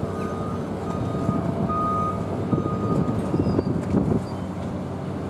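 Reversing alarm beeping about once a second over the steady drone of diesel harbour machinery, with a few knocks in the middle.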